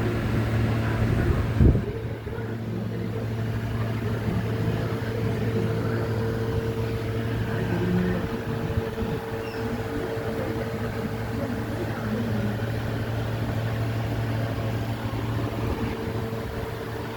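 Steady low mechanical hum, like a running engine or motor, with a single thump about two seconds in.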